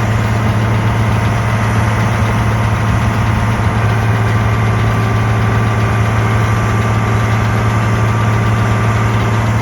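Case IH Magnum tractor's diesel engine running steadily while baling hay with a Case IH RB455 round baler, a constant loud drone with a strong low hum.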